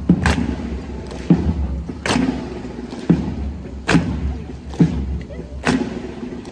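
Evzones' hobnailed tsarouchia shoes striking the asphalt in unison as the guard marches, sharp strikes roughly once a second over a low steady rumble.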